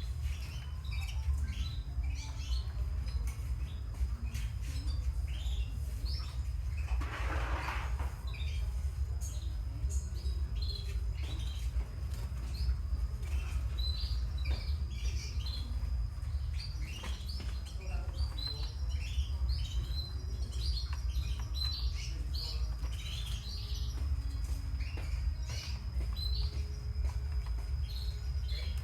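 Many caged canaries chirping and trilling, with short calls all through and a held high note, over a steady low hum. A brief rustling noise comes about seven seconds in.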